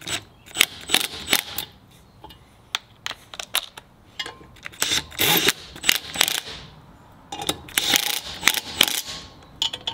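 Cordless impact driver running in several short bursts, spinning and hammering in the fasteners that hold a rear brake backing plate to the knuckle. Sharp clicks of metal parts being handled come between the bursts.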